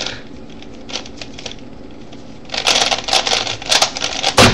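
Plastic Rubik's Cube layers being turned fast by hand, a few scattered clicks and then a rapid flurry of clicking about two and a half seconds in: the final moves of a speed solve. A loud thump near the end.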